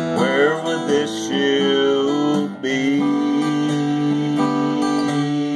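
Strummed acoustic guitar with a man singing a slow gospel song, settling into one long held note from about halfway through.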